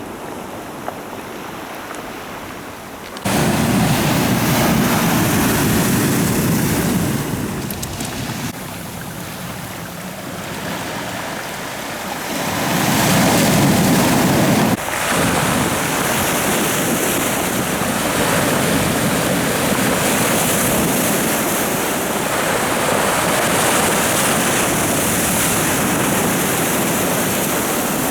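Sea waves washing and breaking on the shore, with wind on the microphone. The level jumps abruptly about three seconds in and shifts sharply again near fifteen seconds, like cuts between separate recordings.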